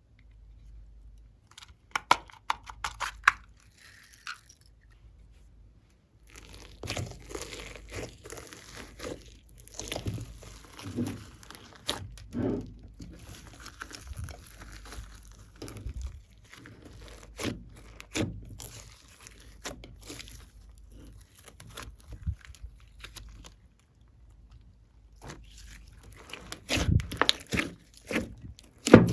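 Glossy slime being handled and mixed with added bits, making irregular crunching, crackling and squishing sounds in clusters, with brief quieter pauses.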